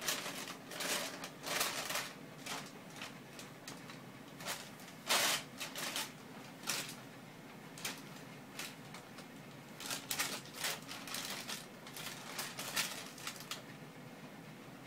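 Thin plastic carrier bag crinkling in irregular bursts as a Siberian cat paws at it and treads on it, the loudest rustle about five seconds in.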